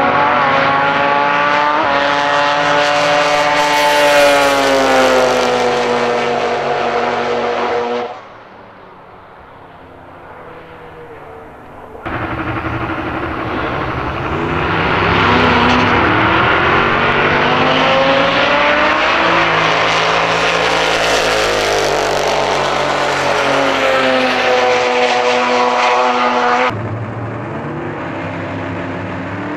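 Drag-racing cars running at full throttle down the strip, engine pitch climbing and then falling away as they pass. The sound drops abruptly to a low rumble about eight seconds in. A second loud run starts about four seconds later, and near the end it settles to a lower, steadier engine sound.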